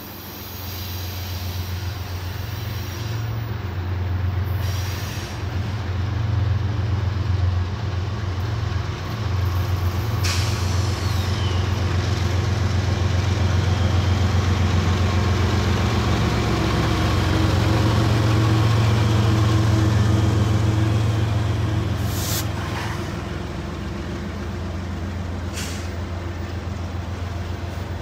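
Union Pacific diesel locomotives' engines rumble as they approach and pass, loudest mid-way. Then autorack freight cars roll by with steady wheel-on-rail noise and a few sharp clicks near the end.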